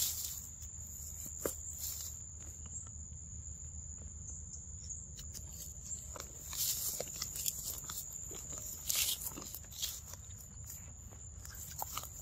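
Steady high-pitched drone of insects in the forest, with a few scattered rustles in the leafy undergrowth.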